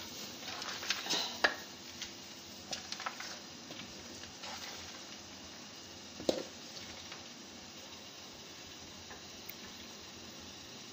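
A metal ladle clinking and scraping against a large aluminium bowl of nwasser pasta, several clinks in the first second and a half and one sharp knock about six seconds in, then faint steady background noise.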